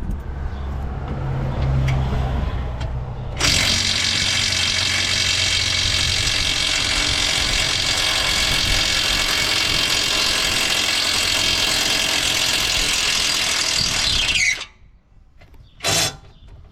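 Power tool (impact wrench) running hard on the corroded 21 mm brake caliper carrier bolts for about eleven seconds, starting about three seconds in and winding down in pitch as it stops, then two short bursts.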